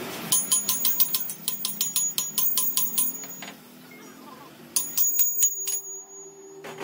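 Hammer blows on a steel camshaft, fast and ringing. They come at about five a second for some three seconds, stop briefly, then return as a shorter run of about six.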